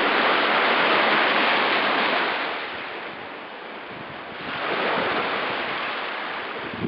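Lake waves washing in against rocks on the shore, loud at first, easing around the middle, then swelling again.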